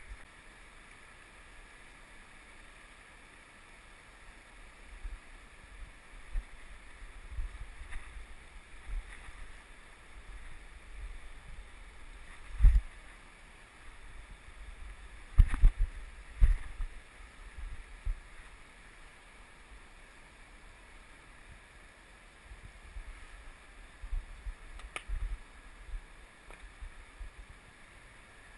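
Steady rush of a fast river, with wind buffeting the camera microphone in low gusts and a few sharp knocks, the loudest a little before halfway and a cluster just after.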